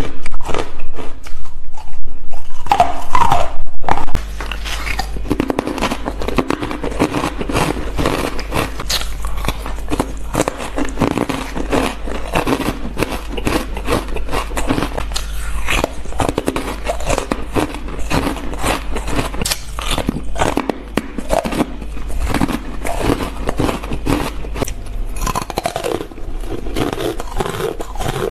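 White frosted ice being bitten and chewed close to the microphone: a dense, rapid run of crunches. It is loud at first, then drops to a steadier, quieter crunching about four seconds in.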